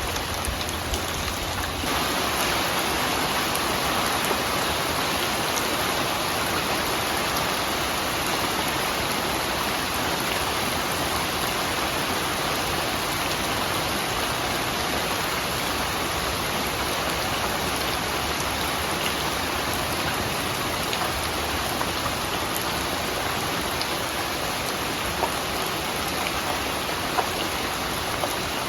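Steady rain falling: a dense, even hiss with the odd louder drop.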